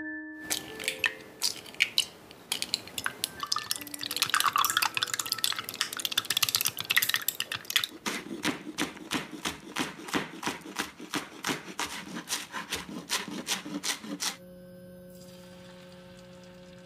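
Clinking and scraping in a glass measuring cup as eggs are beaten, then a kitchen knife chopping a bunch of chives on a cutting board in quick, even cuts of about three a second. About 14 seconds in the chopping stops and the steady hum of an electric glass cooktop takes over.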